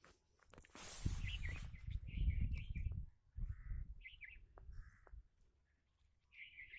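Small birds chirping in short repeated calls, over a low rumble, with a burst of rustling noise about a second in.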